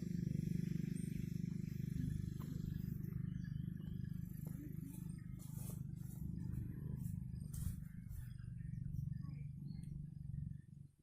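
Wind buffeting the microphone as a steady low, fluttering rumble, with a few light clicks partway through.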